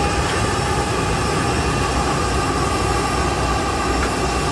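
Turbofan engines of a rear-engined regional jet running at taxi power: a steady jet whine over a broad rushing noise, with a few held tones.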